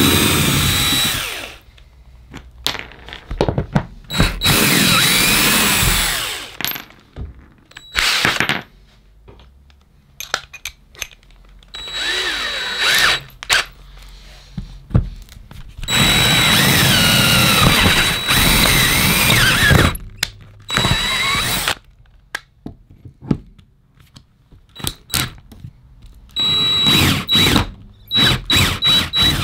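Cordless drill running in repeated bursts of a few seconds with pauses between, first backing screws out of an OSB subfloor and then drilling holes into the wood. The motor's pitch sags and rises as it loads, and near the end it is run in short stuttering pulses.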